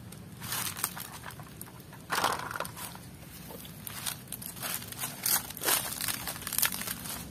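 Dry palm fronds rustling and crunching in irregular bursts as they are pushed aside by hand, the loudest crackle about two seconds in.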